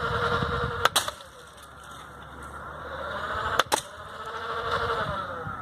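Battery-powered Nerf blaster firing two foam darts, one about a second in and one about two-thirds of the way through, each a sharp double snap. Between the shots the motor's whine rises and falls.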